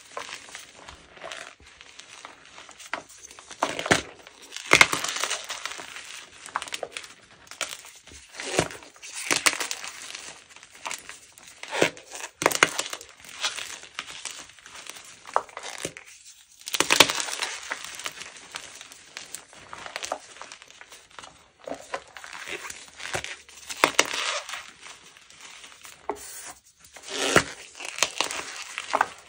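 Crunchy gym chalk mixed with cornstarch being crushed and crumbled, a run of dry crunches and crackles coming in irregular bursts every second or two.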